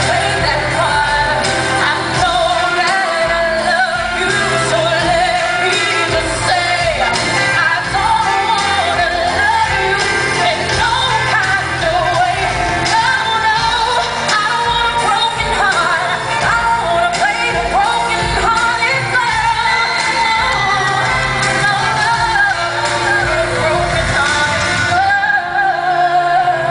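Female pop singer singing a ballad live with her band, picked up from the audience in an arena.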